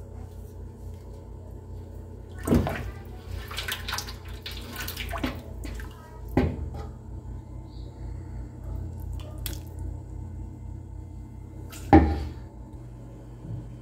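Pozole being ladled from a large pot: liquid pouring and splashing, with a metal ladle clattering and knocking against the pot. There are three sharper knocks, the loudest about 12 seconds in, over a steady low hum.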